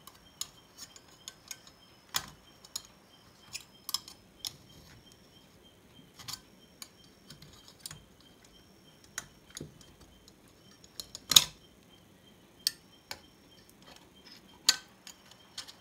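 Scattered small metallic clicks and taps of hand tools working on an amplifier circuit board while a power transistor and its heat sink are being removed, with one sharper, louder click about eleven seconds in. A faint steady high tone runs underneath.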